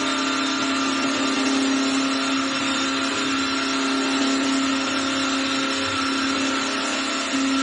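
CNC lathe with automatic tool changer running: a steady motor hum over an even hiss.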